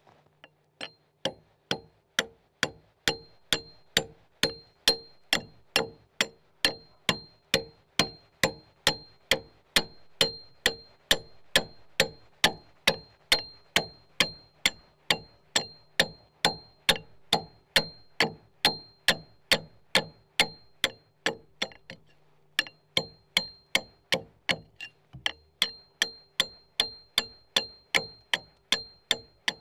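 Axe blows chopping out a cog notch in a log corner, in a steady rhythm of about two strokes a second, each with a short ringing ding. The chopping stops briefly about 22 seconds in.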